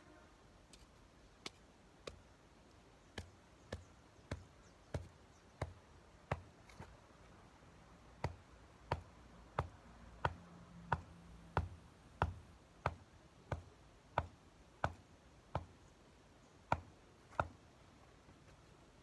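A steady series of sharp knocks from hand work on the soil of a garden bed. They are sparse at first, then from about eight seconds in they come louder and regularly, roughly one every two-thirds of a second.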